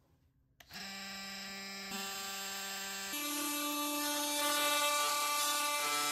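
Cordless oscillating multi-tool switched on about a second in, running with a steady buzzing hum. Its pitch steps up about two seconds later, and it grows louder and rougher near the end.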